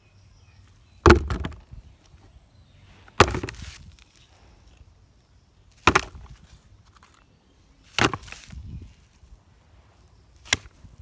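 Toy vehicles being set down one at a time into a container, five sharp knocks about two to three seconds apart, each followed by a brief clatter.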